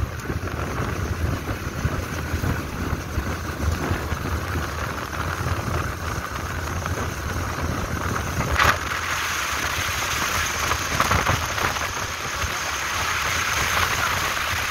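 Riding noise from a moving motorcycle at around 60 km/h: wind rushing over the microphone with a low rumble underneath. One brief sharp crack about nine seconds in.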